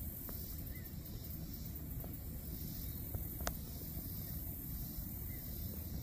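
Outdoor marsh ambience: a steady hiss over a low rumble, with a high drone that swells and fades about once a second. Two faint short chirps and a few clicks, the sharpest about halfway through, stand out from it.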